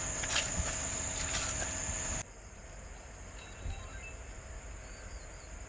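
Crickets trilling in a steady high tone. About two seconds in the sound drops abruptly to a fainter trill.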